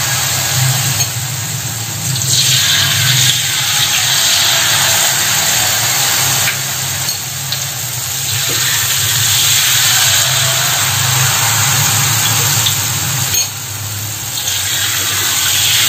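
Hot oil in a wok sizzling loudly as rempeyek (peanut cracker) batter is poured into it by the ladleful. The sizzle swells several times as fresh batter goes in.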